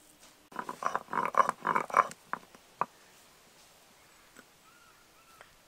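Hand-held stone roller rubbed back and forth on a flat grinding stone (shil-nora), grinding cashews, melon seeds and poppy seeds. About half a second in comes a quick run of rough scraping strokes, about five a second, lasting about a second and a half, then two single knocks.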